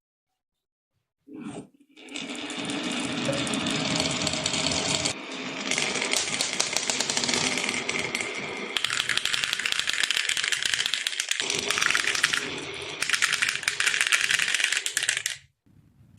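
Many marbles rolling and clattering down a wooden HABA marble-run slope: a dense rattle of clicks that starts about two seconds in, changes in character several times, and stops suddenly near the end.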